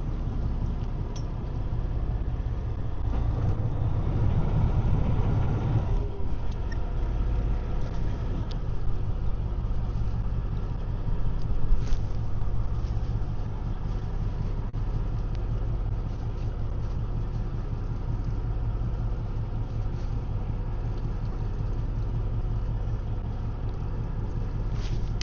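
Fishing boat's engine running steadily with a low drone, louder and rougher for a few seconds about three seconds in.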